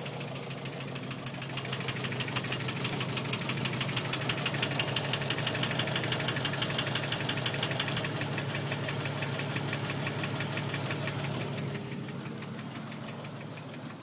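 1992 Jeep Cherokee's 4.0-litre inline-six running with a clicking knock, clicking really fast and evenly over the engine hum. The clicking grows louder through the middle and eases off near the end; the cause of the knock is unknown to the owner.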